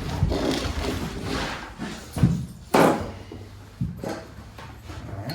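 Scraping and knocking of a long level being shifted and set against a wall while a line is drawn, with two sharp knocks a little past the middle.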